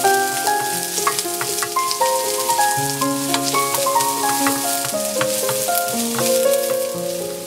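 Chopped onions and mustard seeds sizzling in hot coconut oil in a stainless steel kadai, sautéing toward translucent. A wooden spatula stirs them with scattered light ticks against the pan, under background music that plays a melody of steady notes.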